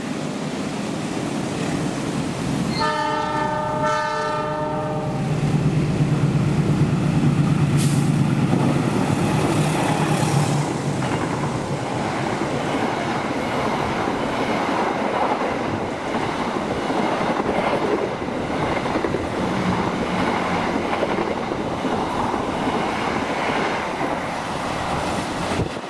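Long-distance passenger train passing through the station at speed: the diesel locomotive sounds its horn for about two seconds a few seconds in, its engine drone passes close by just after, and then the carriages roll past with a steady rumble.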